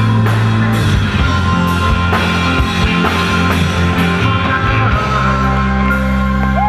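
Live rock band with orchestra playing a wordless passage: drum hits over bass and held chords. The drumming thins out about five seconds in, leaving sustained chords.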